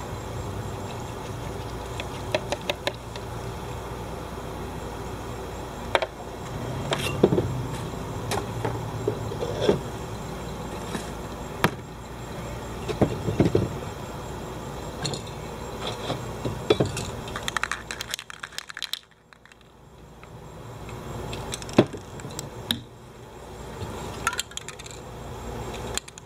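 Spray cans and cardboard being handled: scattered light clinks and knocks over a steady low background hum, which briefly drops away about two-thirds of the way through.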